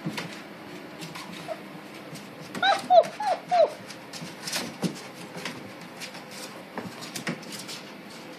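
Young puppies whimpering: a quick run of four or five short, high squeaks, each falling in pitch, about three seconds in, with scattered soft clicks and rustles around them.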